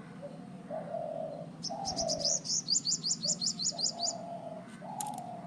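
Birds calling: a fast high trill of about fourteen notes lasting some two and a half seconds, over lower repeated cooing notes. A steady low hum runs underneath.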